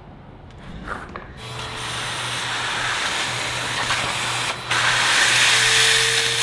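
Shop vacuum switched on about a second in and then running steadily, its wand held at the concrete floor to suck up drilling dust around the lift's anchor holes. The suction noise dips briefly partway through.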